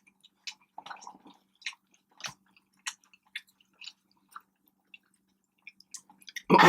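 Close-miked chewing and biting of food, with scattered small wet clicks and smacks from the mouth. A voice cuts in loudly near the end.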